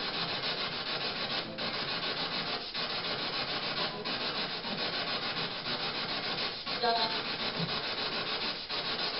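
Steady loud static-like hiss, broken by brief dropouts every second or two, with a faint short pitched chirp about seven seconds in.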